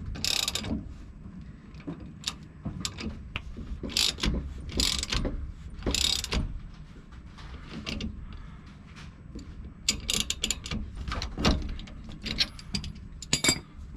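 A hand ratchet clicking in spurts as it turns a C-press screw, pressing a new U-joint bearing cap into a front axle yoke. Several separate strokes come first, then a quicker run of clicks from about ten seconds in.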